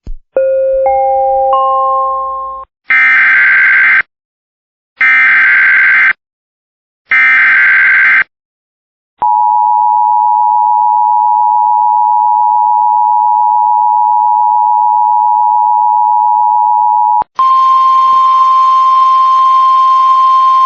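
Emergency Alert System alert tones: three short rising tones, then three bursts of digital header data about a second each with gaps between them. Then comes the steady eight-second two-tone EAS attention signal, and near the end a second steady alert tone with hiss under it.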